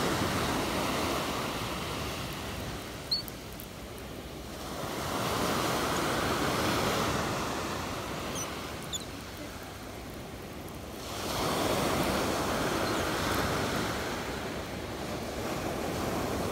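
Sea surf breaking on a sand-and-pebble beach, the wash swelling and fading in three long surges, with a couple of faint clicks.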